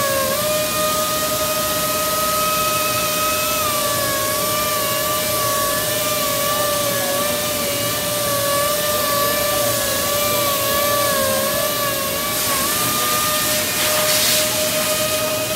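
Robot-held orbital sander running on a dark-stained maple panel: a steady high whine whose pitch wavers slightly as the pad works across the surface, over a steady hiss, with a brief louder hiss near the end.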